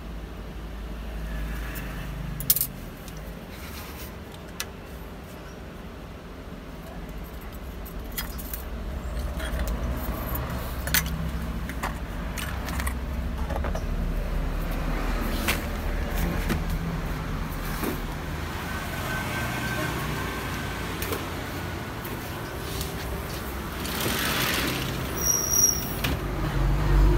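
Small titanium bolts clicking and clinking as they are handled, a few separate clicks and then a quick cluster near the end, over a steady low rumble.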